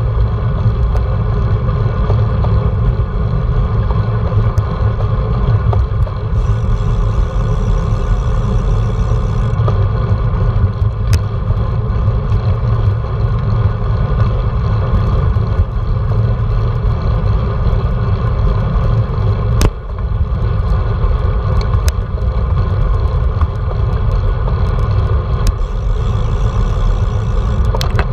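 Wind buffeting a handlebar-mounted GoPro's microphone on a moving road bike, a loud, unsteady low rumble mixed with tyre noise on asphalt. A few sharp clicks stand out.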